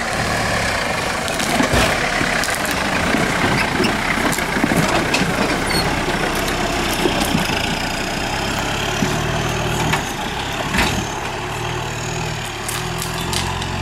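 Modified off-road 4x4's engine running at low revs as the truck crawls over a rocky forest trail, the engine note growing stronger in the second half. A few sharp knocks sound along the way.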